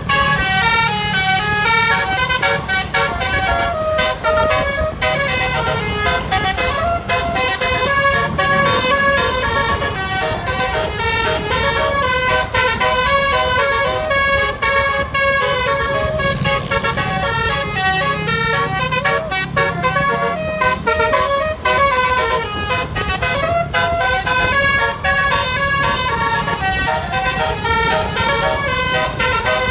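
Basuri 'telolet' multi-tone bus horn playing a fast melody of short, stepped notes without a break, over a low rumble.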